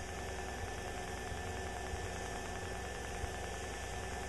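Steady low drone of a light single-engine airplane in level flight, its engine and propeller sound heard as an even hum inside the cabin.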